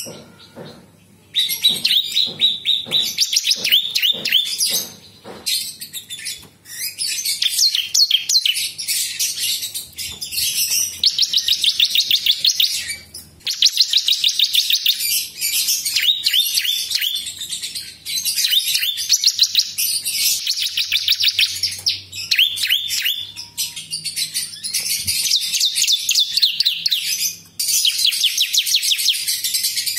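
Caged prinia (prenjak) singing loud, very fast trills of rapidly repeated high notes, in long runs broken by short pauses; a few sharp ticks come first, about a second and a half before the trilling starts.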